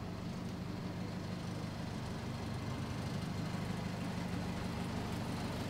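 Diesel race pickup engine idling steadily, a low even hum with no revving.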